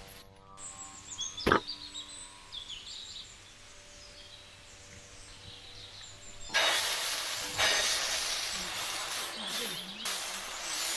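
Birds chirping over a quiet background, with a single sharp knock about a second and a half in. About six and a half seconds in, a loud steady hiss starts abruptly: oil sizzling under a dosa on the hot pan.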